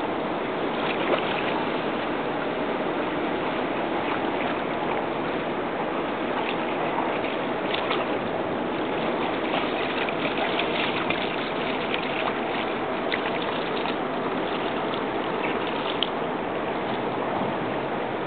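Shallow water splashing and lapping at the shore as a dog wades through it, with a run of small, sharp splashes in the middle.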